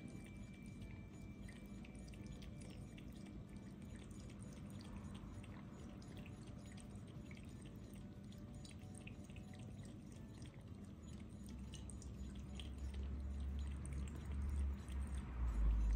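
Cat lapping water from a raised ceramic bowl: a steady run of soft, quick licking ticks over a faint steady hum. A low rumble grows louder over the last few seconds.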